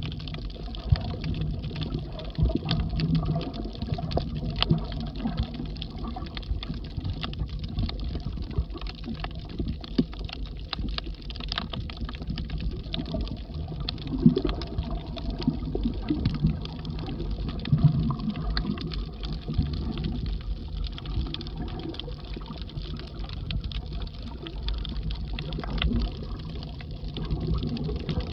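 Underwater sound on a coral reef: a steady, muffled low water noise with frequent irregular faint clicks and crackles.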